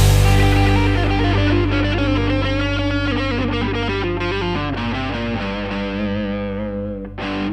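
Rock music ending: distorted electric guitar chords ringing out and slowly fading, with one last short strum about seven seconds in.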